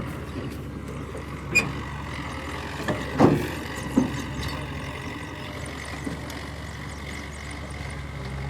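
Diesel engine of a backhoe loader or tractor running steadily, with a few sharp clanks in the first half.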